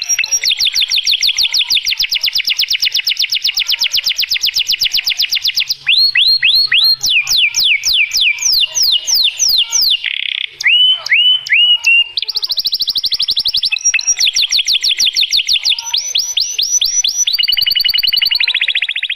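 Domestic canary singing loudly: a long rapid trill of even repeated notes, then a run of about three downward-sweeping whistles a second, then another fast trill ending in a buzzy roll near the end.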